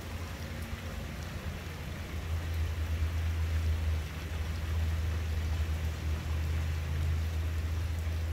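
Steady rain falling on a street and porch, heard as an even hiss, with a low motor hum under it that grows louder about two seconds in.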